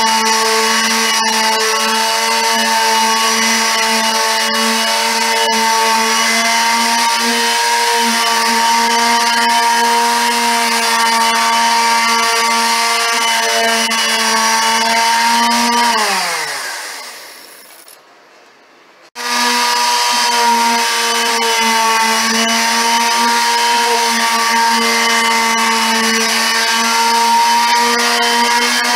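Electric palm sander running steadily with a constant motor hum while it is worked over a painted cabinet door. About 16 seconds in it is switched off and winds down with a falling pitch. It restarts abruptly about three seconds later and runs steadily again.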